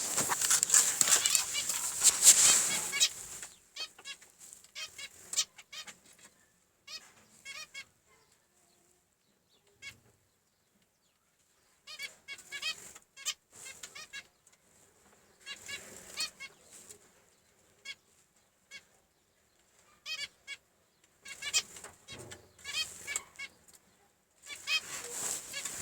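Zebra finches chirping in bursts of quick, repeated high notes with pauses between. The busiest stretch is at the start, where a rush of wing flapping joins the calls, and the activity picks up again near the end.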